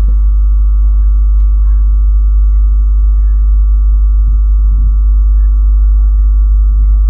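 Loud, steady low electrical hum with a stack of even overtones above it, typical of mains hum picked up in the recording. It drowns out any sound from the simmering curry.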